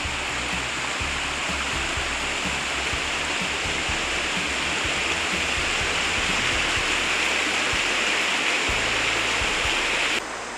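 Rushing mountain creek tumbling over rocks just below a footbridge: a steady, loud hiss of water that cuts back sharply near the end.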